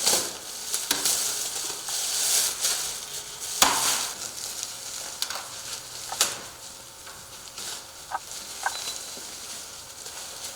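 Plastic protective covers being peeled off and handled, a steady crackling rustle with several sharp snaps and two brief squeaks near the end.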